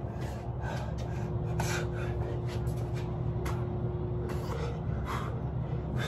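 A person breathing hard through exercise reps, with short sharp exhales every second or so, over a steady low hum.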